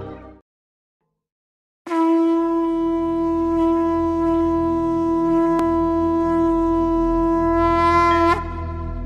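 Conch shell (shankh) blown in one long steady note of about six and a half seconds over a low drone. Its pitch lifts slightly just before it stops. It sounds the start of a Hindu invocation. The music before it fades out into a second or so of silence.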